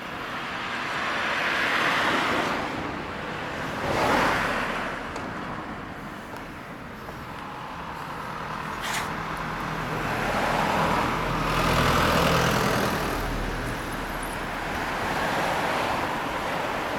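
Road traffic: several cars pass one after another, each a swell of tyre and engine noise that rises and fades. A low engine hum joins in around the middle.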